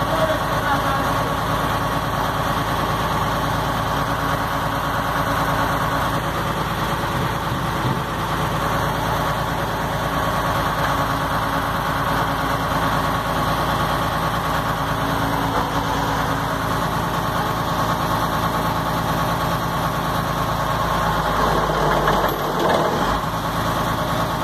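Truck's diesel engine idling steadily. About 22 seconds in, the low hum briefly drops in pitch before settling again.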